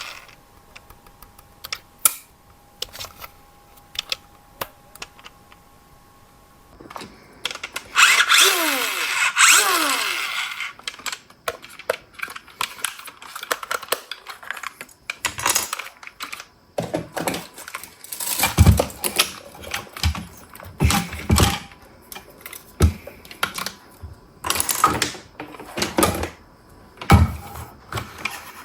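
Handling noises: a loud rasping burst with falling pitch about eight seconds in, followed by a long run of irregular clicks and knocks.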